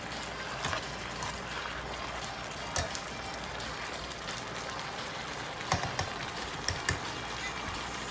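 Chicken strips sizzling and bubbling steadily in sauce in an electric skillet, the sauce cooking down, with a few sharp clicks of metal tongs against the pan.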